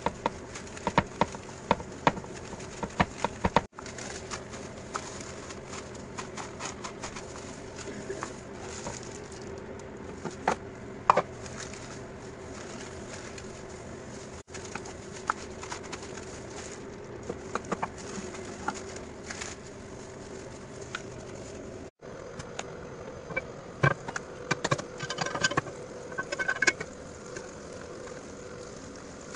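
Clear plastic bag and plastic gloves crinkling and crackling in irregular bursts as a soft mixture is pressed into patties with a plastic lid, over a steady low hum.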